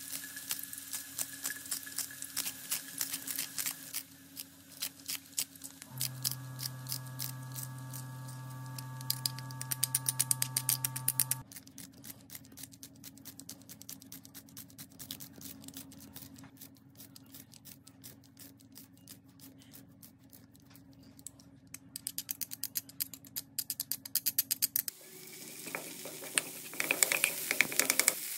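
Rapid clicking snips of a handheld multi-blade chopping scissors mincing green onion and then garlic cloves into a wok, with a low steady hum for a few seconds in the middle. Near the end, oil sizzles as the minced green onion and garlic are stirred in the pan.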